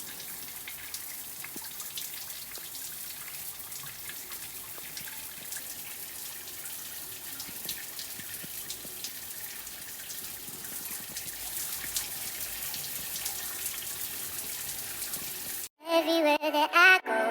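Water running steadily: a hiss with many small splashes and drips. Near the end it cuts off and a song with singing begins.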